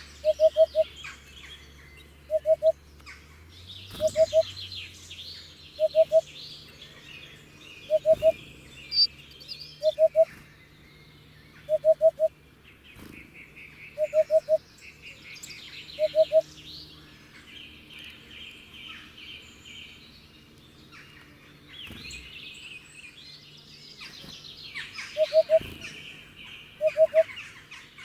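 Hoopoe calling its low 'oop-oop-oop', short groups of two or three notes repeated about every two seconds. The calls stop for several seconds after the middle and start again near the end, over higher chirping from other songbirds.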